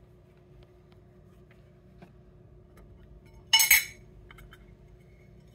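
Tin cans knocking together and being set down on a stone countertop: a sharp double clink about three and a half seconds in, a few light taps, and another double clink at the very end.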